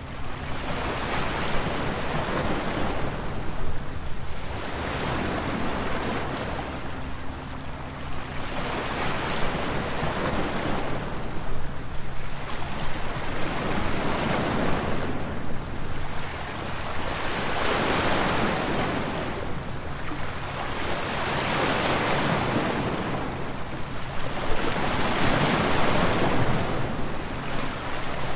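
Small sea waves breaking and washing over a pebble shore, swelling and ebbing about every four seconds.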